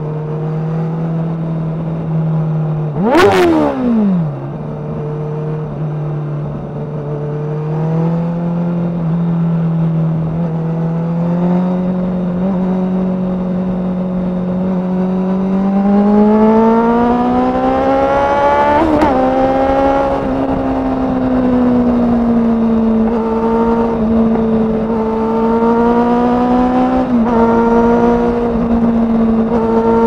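Kawasaki ZX-6R's inline-four running through a Yoshimura undertail exhaust, with a sharp quick rev about three seconds in. Engine speed then climbs gradually and holds higher, with short blips of the throttle twice near the end.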